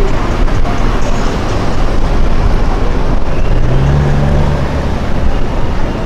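Cars driving by on a city street: engine and exhaust noise with a heavy low end. A steady low engine note comes in about three and a half seconds in and holds for over a second.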